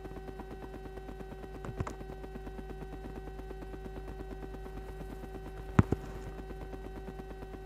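A steady hum with a faint, regular pulsing, broken by two sharp clicks, one about two seconds in and a louder one near six seconds.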